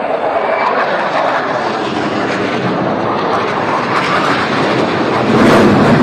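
F-16 fighter jet passing overhead: a loud, steady jet rush that builds and grows louder, with a deeper rumble, near the end.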